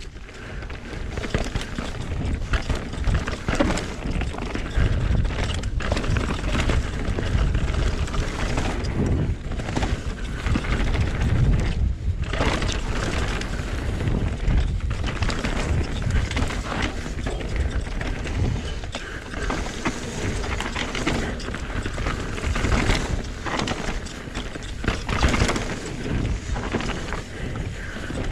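Mountain bike riding fast down a dirt and rock forest trail: wind buffeting the microphone, tyres rolling over dirt and leaves, and frequent rattling knocks from the bike over rocks and roots.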